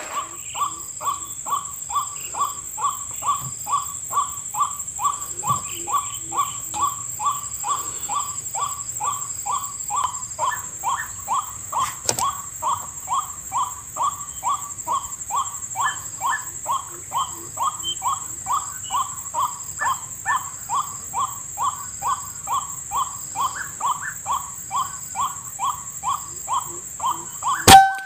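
Monotonous repeated call of a white-breasted waterhen, about two and a half calls a second, over a steady high-pitched whine. Near the end a PCP air rifle fires once with a sharp crack.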